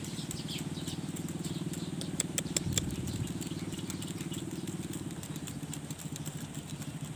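A small engine running steadily with a fast, even pulse, with a few faint clicks about two to three seconds in.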